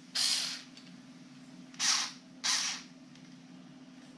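Three brief rustling noises of hand handling, with the screwdriver and its case being moved about, over a faint steady hum.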